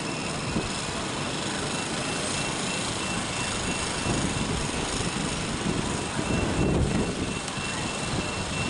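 Kaohsiung light-rail tram (CAF Urbos 3 low-floor LRV) pulling away from the station and rolling off along the track, under a steady hiss of street ambience. A thin, steady high tone runs through most of it and fades near the end.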